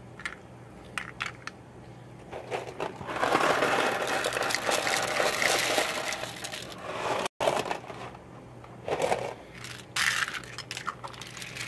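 Dry uncooked rigatoni pouring from a cardboard box into a cast-iron pan, a dense rattle of hard pasta lasting about four seconds. Before and after it, a spoon stirs the pasta and sauce with scattered clicks and scrapes.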